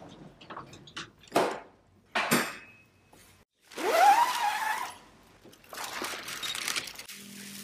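A body bag being opened on a mortuary trolley: a few sharp knocks, then the zip pulled open with a rising whir, followed by crinkling of the plastic sheeting inside. A low steady drone comes in near the end.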